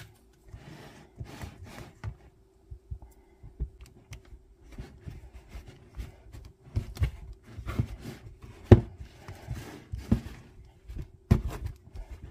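Metal pastry blender cutting butter into flour in a mixing bowl: irregular dull knocks and scrapes as the blades are pressed down through the flour against the bottom of the bowl, a little louder in the second half.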